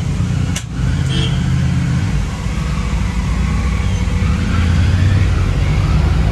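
A steady, loud low rumble with a short click about half a second in.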